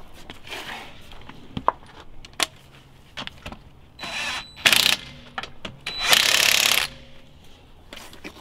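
Cordless impact wrench driving wheel bolts through newly fitted wheel spacers, in three short runs, the longest nearly a second. Metal clicks and clinks of the bolts and wheel are handled before the runs.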